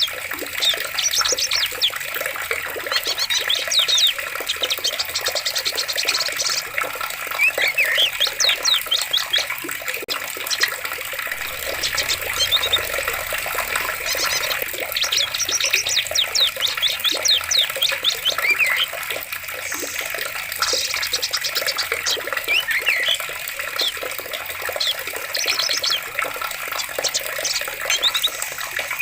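Steady rush of running water, with small birds chirping through it in repeated quick trills and short rising and falling whistled notes.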